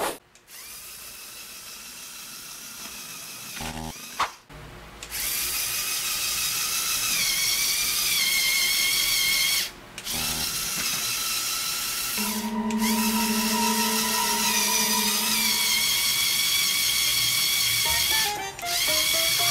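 Lego Technic electric motor whining through its gear train, a high whine that dips and rises with short breaks. The motor is straining under load on a 30-degree climb, the vehicle making almost no headway.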